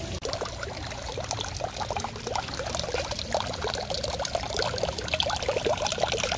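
Water trickling and splashing into water, a dense, irregular patter of small drops plinking.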